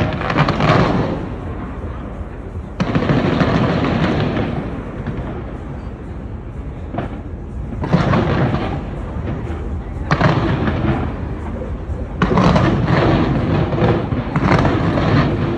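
New Year fireworks bursting: a sudden bang every two to five seconds, six in all, each trailing off in a long rumble.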